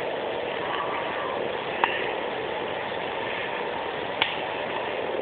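Two sharp clicks about two seconds apart over a steady background hiss: the tools of a Victorinox Huntsman Swiss Army knife being opened out and clicking into place.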